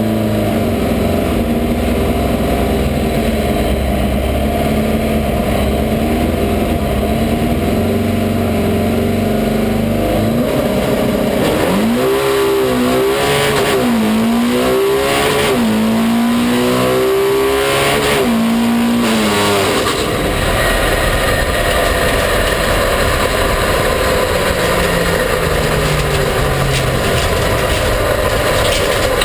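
Drag car's engine running on the start line, then revving hard through several rising pulls up through the gears during a pass. About two-thirds of the way in the engine note stops abruptly, leaving a rushing noise as the car coasts. This is the run in which the engine blew, breaking its crank, cam, lifters and block.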